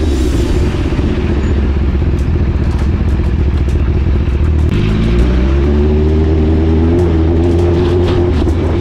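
Motorcycle engine running steadily while riding. About five seconds in its note shifts and climbs a little as the bike speeds up.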